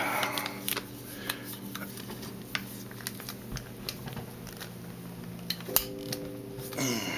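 Scattered light clicks and scrapes of metal and polymer as a tight-fitting drop-in quad-rail handguard is tugged and worked on an AR-15-type rifle, not yet coming free. A steady low hum runs underneath.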